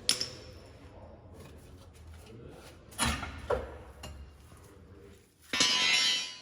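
Shop work on a car's rear suspension: a sharp click, then two knocks about three seconds in, the second with a brief metallic ring, and near the end a loud burst of hissing noise lasting under a second.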